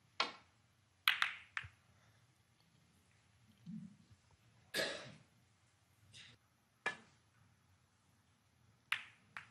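Sharp clicks of snooker balls: the cue tip strikes the cue ball near the start, then a few separate knocks follow as the cue ball runs up the table and back. The loudest knock comes about halfway through.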